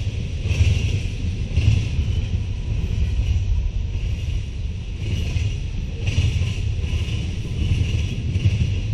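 Freight train rolling past: a steady rumble of steel wheels on rail, with a rhythmic clatter that swells about once a second as the cars' wheel sets go by.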